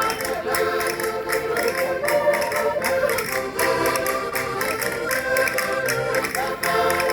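Concertinas playing a lively folk dance tune in sustained reedy chords and melody over a steady beat of sharp taps.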